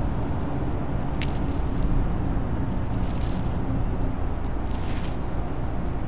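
Paint roller on an extension pole working wet roof coating into reinforcing fabric, a few soft swishes, over a steady low rumble.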